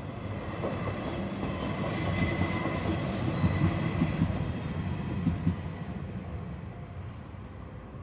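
A Hanshin Railway electric train running past, its wheels rumbling on the rails with high squealing from the wheels in the middle of the pass. The sound is loudest a few seconds in and fades away near the end.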